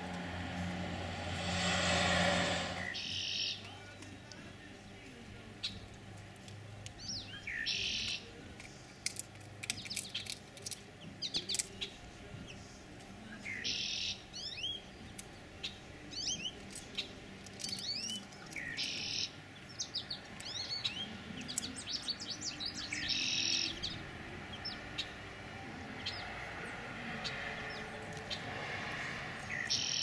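Small songbirds chirping and singing, with many short high notes and a brief high buzzy phrase that repeats about every five seconds. A loud rush of noise comes about two seconds in.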